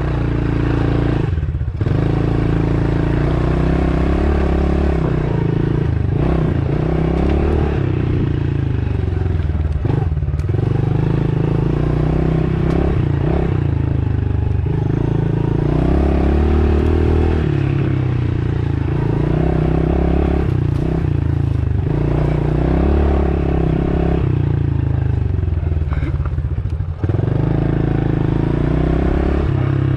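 Dirt bike engine running while being ridden, its pitch rising and falling as the throttle is worked, with a brief drop about two seconds in and again near the end.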